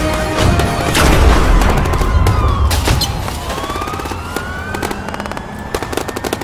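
Action-film sound effects: a heavy boom about a second in, sharp bangs, and whistling tones sliding up and down, then a rapid, even gunfire-like rattle near the end.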